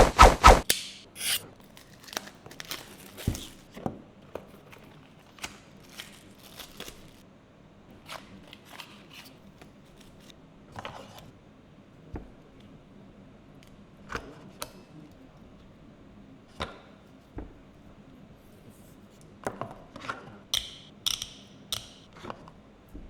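Product box and packaging handled during unboxing: scattered clicks, taps and rubbing, with a loud cluster of knocks at the start and a few sharper crackly rustles near the end.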